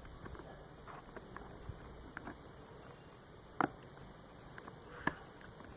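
Small plastic-wrapped package being handled: faint scattered crinkles and clicks, with two sharper clicks about three and a half and five seconds in.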